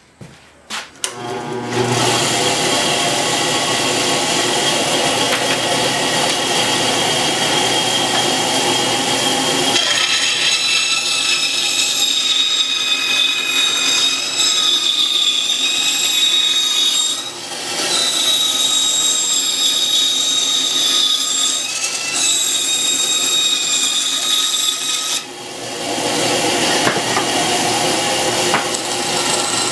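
Power saw running and cutting a wooden board to size, a steady motor whine over the cutting noise. It starts about two seconds in, changes in tone about ten seconds in, and eases off briefly twice later on.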